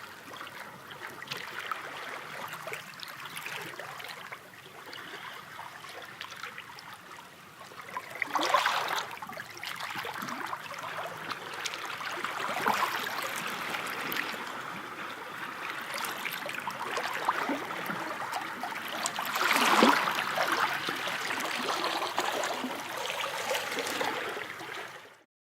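Sea waves washing and fizzing, with a steady hiss of surf. Two bigger waves surge up about eight seconds in and again about twenty seconds in, the second the loudest. The sound cuts off shortly before the end.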